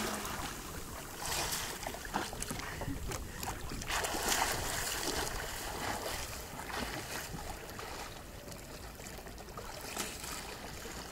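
Water splashing and sloshing around a sit-on-top kayak on the sea. Several splashes come in the first five seconds or so, then it settles to softer lapping.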